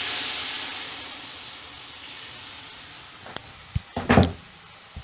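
Hot water hitting a pan of roasting curry spices, sizzling with a loud hiss that dies away over about three seconds. A few knocks follow near the end, the loudest about four seconds in.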